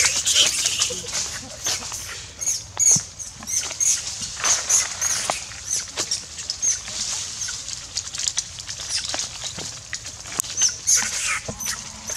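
Macaque screaming in distress: a rapid, repeated string of short, high-pitched squeals that keeps going with brief pauses, loudest in the first half.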